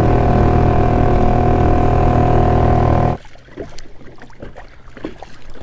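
Kayak's electric trolling motor running with a steady whine, cutting off abruptly about three seconds in. A few faint ticks follow.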